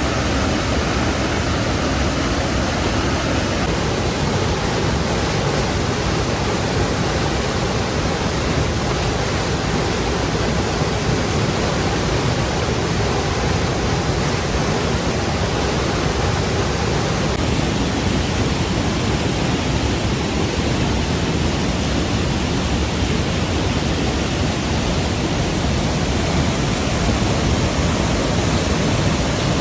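Loud, steady rush of water noise with no breaks, from falling water such as a waterfall or heavy rain.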